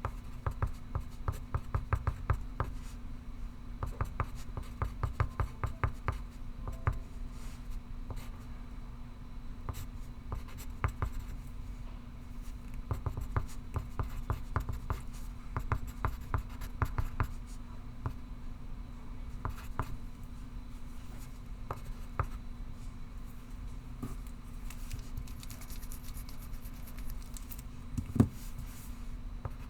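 Pencil writing on paper: bursts of quick scratching strokes, densest in the first half, then sparser, with one sharper knock near the end. A steady low hum runs underneath.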